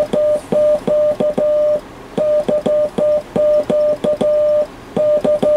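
Morse code keying tone from the SBE SB-36 transceiver keyed in CW mode: a steady mid-pitched beep switched on and off in short and long dits and dahs, with a small click at each key edge. The transmitter is putting out plenty of RF power on the newly replaced 6BQ5 driver tube.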